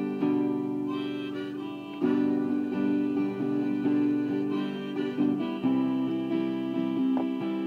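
Strummed acoustic guitar with a harmonica playing held notes over it, an instrumental break with no singing.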